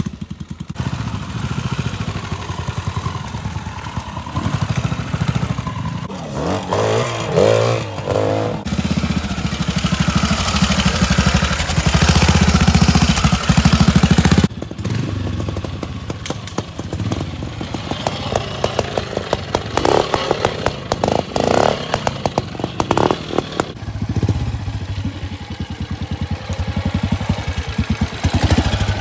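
Vintage trials motorcycles' engines running through a muddy section, firing steadily at low revs with repeated blips of the throttle, loudest near the middle. The engine sound changes abruptly twice.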